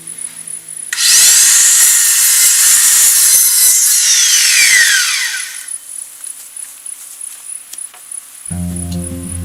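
A power saw cuts through lumber for about four seconds, then its blade spins down with a falling whine.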